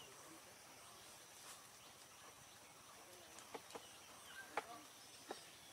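Quiet outdoor ambience with a steady faint high hiss, broken by about five short, sharp knocks between three and five and a half seconds in, the loudest a little past four and a half seconds.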